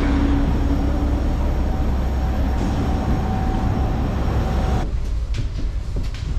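Steady aircraft turbine noise on an airport apron, a dense rush with a steady whine, which cuts off abruptly a little under five seconds in. After that a much quieter enclosed walkway with a few footsteps.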